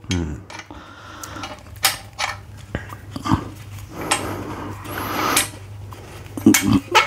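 Irregular metal clinks and knocks from a Kepspeed springer front fork and the clamp on it, as the clamp holding the fork's springs compressed is slowly eased off.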